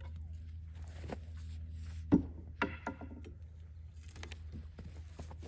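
A single heavy knock about two seconds in, followed by a short ringing tone that dies away, with a few fainter knocks and a steady low hum.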